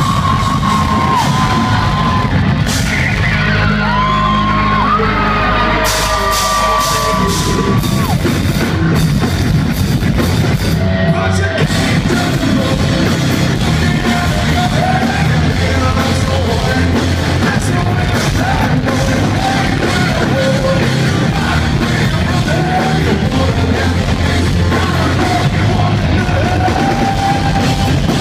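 Hard rock band playing live at full volume, with a singer's voice over the band.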